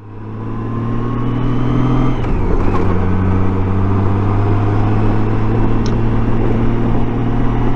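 2008 Honda Gold Wing's flat-six engine running steadily while riding, with wind and road noise; the engine note steps down slightly about two seconds in.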